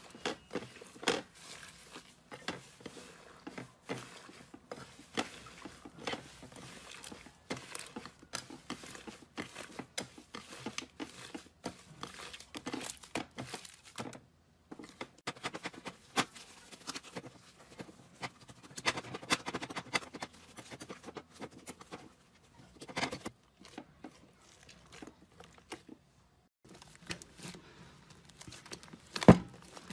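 Hands kneading, pulling and pressing slime: a dense, irregular run of small crackles, pops and squishes as air pockets in the slime burst. The crackling breaks off twice, about halfway and a few seconds before the end, and a loud pop comes just before the end.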